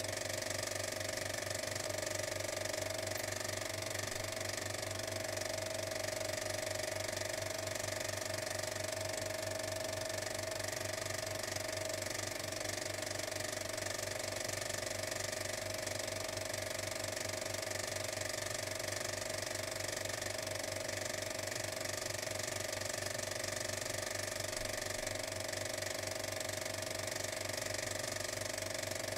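A steady mechanical whir with a fast, even clatter over a constant hum, unchanging throughout.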